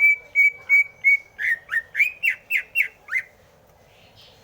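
A green leafbird (cucak hijau) singing a loud phrase of clear whistles: five level notes, then a quicker run of notes sliding up and down, stopping about three seconds in.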